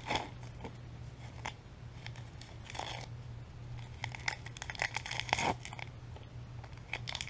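Paper packaging rustling and crinkling while small air-conditioner logo emblems are unwrapped and handled, with scattered light clicks and taps.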